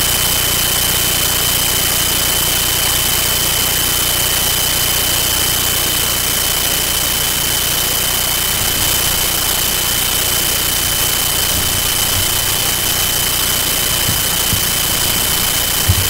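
Steady, loud, even hiss with a constant high-pitched whine running through it; a short low bump near the end.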